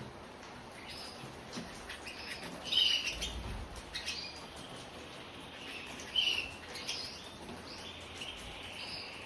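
Belgian canaries giving short, separate high chirps at irregular intervals, the loudest about three and six seconds in, with scattered small clicks and taps between them.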